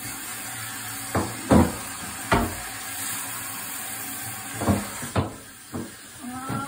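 Domestic cat, wet and being bathed, starting a low, drawn-out yowl near the end. Before it come a few sharp knocks and bumps over a steady hiss that stops about five seconds in.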